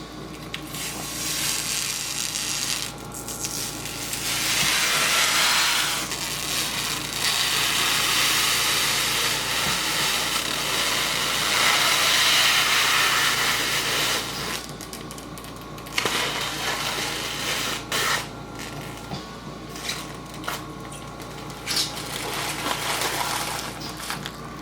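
Handling noise: irregular rustling with scattered sharp clicks, loudest through the middle, over a steady low electrical hum.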